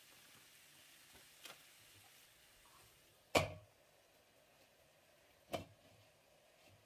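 Round glass pot lid set down on a square frying pan with a sharp clank about three and a half seconds in, then knocking against the pan again about two seconds later as it is shifted into place. A small click comes earlier.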